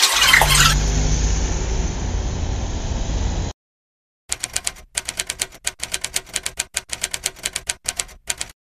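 Rapid keystroke clicks, several a second for about four seconds, typing out on-screen text letter by letter. Before them comes about three seconds of steady noise with a low rumble, which cuts off suddenly.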